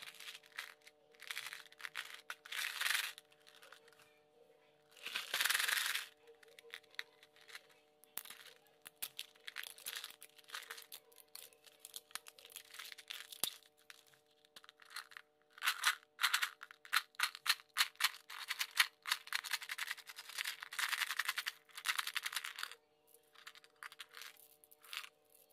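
Plastic candy packaging crinkling and crackling in irregular bursts as hands handle and open it, the longest burst about five seconds in, over faint steady background tones.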